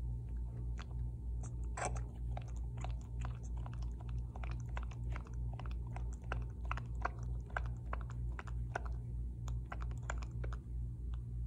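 English cream golden retriever puppy sucking on a pacifier in its sleep: quick irregular wet clicks and smacks from its mouth working the nipple, over a low pulsing about three times a second.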